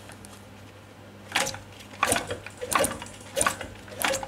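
Flywheel of a Veterok 8 two-cylinder two-stroke outboard motor turned over by hand to test its magneto ignition for spark at the two plugs, with a run of five sharp clicks, about one every two-thirds of a second.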